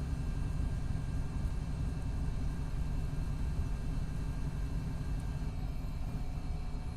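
2019 MCI D4500CT coach with a Cummins ISX12 engine and an Allison B500R transmission, running with a steady low rumble and faint steady whine tones above it. Some of the tones drop away or shift about five and a half seconds in. The transmission is failing and in its last stages.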